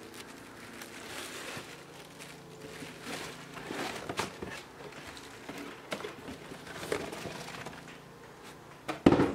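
Cardboard box and the helmet's soft plastic-fabric wrapping rustling and scraping as a welding helmet is lifted out of its box, with a louder knock near the end.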